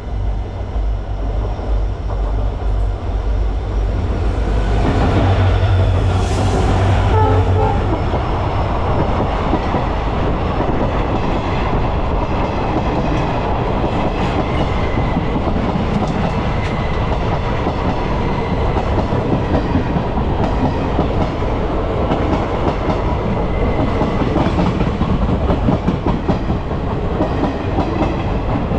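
The Sealdah-bound Kanchanjunga Express passing close by on the next track. A diesel locomotive's deep engine rumble is loudest about five to seven seconds in. Then the coaches roll past with a steady clickety-clack of wheels over the rail joints.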